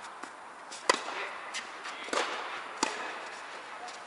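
Tennis rally: several sharp pops of racquets striking the ball, roughly every half second to second, the loudest about a second in, each with a short echo off the indoor hall.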